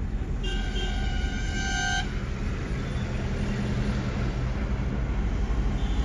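A vehicle horn sounds once, a steady pitched note lasting about a second and a half. Under it is continuous road and engine noise inside a moving car.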